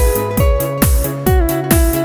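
Background music: an upbeat electronic track with a steady kick-drum beat, a little over two beats a second, under a melody.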